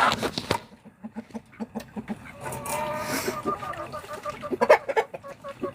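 Chickens clucking: a quick run of short clucks, then a drawn-out pitched call in the middle, and a louder call near the end.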